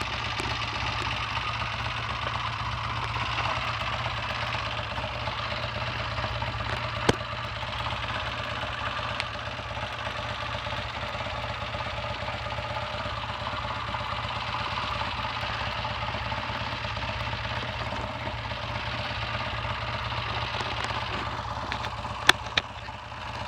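Triumph T140V's 750 cc parallel-twin engine running steadily on a test ride, its gearbox freshly repaired with new layshaft second and third gears. A few sharp clicks near the end.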